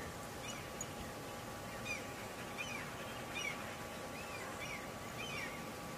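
A small bird chirping repeatedly in short, arched notes, over a steady outdoor background hiss.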